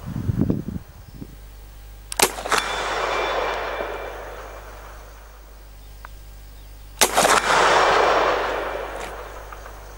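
Two shots from a Rossi Circuit Judge .44 Magnum revolver-action rifle, about five seconds apart. Each is followed a fraction of a second later by a sharper crack and a brief metallic ring from the bullet striking a steel target at 100 yards, then a long rolling echo. A few low thuds come at the very start.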